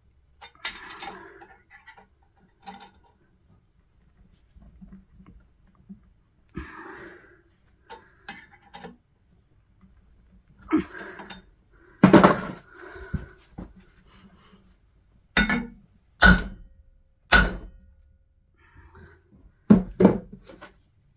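Metal tools and parts knocking and clanking: scattered light handling noises, then about six sharp, loud metallic knocks with a short ring in the second half.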